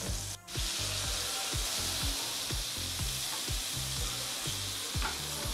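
Butter sizzling and bubbling as it melts in a hot non-stick frying pan, stirred with a wooden spatula. A soft background music track with a steady beat runs underneath.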